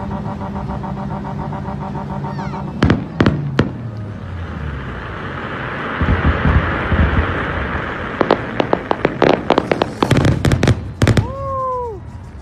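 Aerial fireworks going off: a few sharp bangs about three seconds in, then a crackling hiss. A fast run of pops and bangs follows, ending in a short falling whistle.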